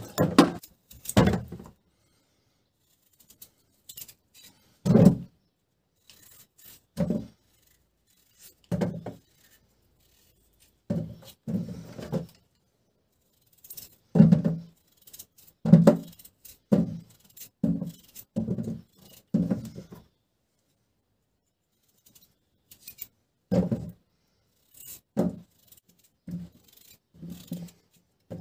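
Raw potato wedges cut with a knife and dropping one after another into a plastic bowl: a string of short, dull thunks with pauses between, coming more quickly about halfway through.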